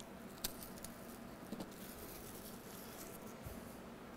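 Plastic shrink wrap crinkling faintly as it is torn and pulled off a trading-card box, with scattered light clicks and one sharper click about half a second in.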